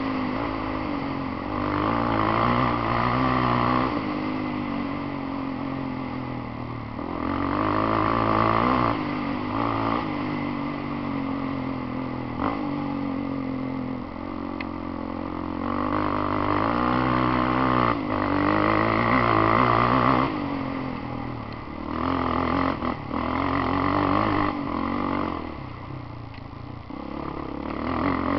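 Polaris Outlaw quad's engine heard from on board while riding, its pitch rising and falling again and again as the throttle opens and closes.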